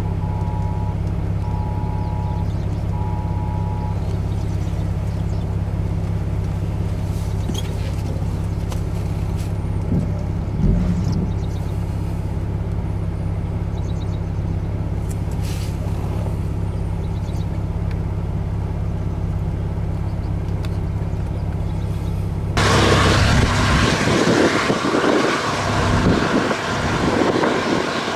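A vehicle engine idles with a steady low hum, with a few short electronic beeps in the first four seconds. About 22 seconds in, the sound cuts abruptly to loud wind buffeting the microphone.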